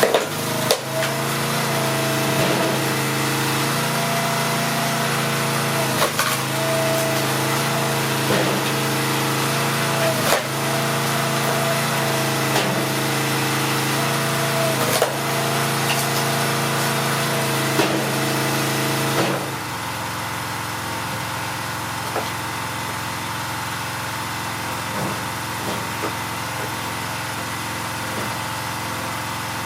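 Small gasoline engine running at a steady speed, with sharp knocks about every two seconds. About 19 seconds in it drops to a quieter idle.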